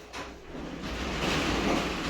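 A pen writing, its tip rubbing across the surface in a long scratchy stroke that builds up about a second in.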